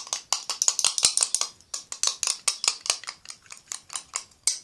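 Metal spoon stirring a runny slime mix of clear glue, water and neon pink gouache in a bowl, clicking and scraping against the bowl in quick strokes, several a second.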